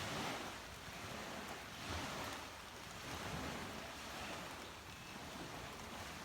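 Small waves washing onto a beach, the surf swelling and easing every couple of seconds under a steady hiss.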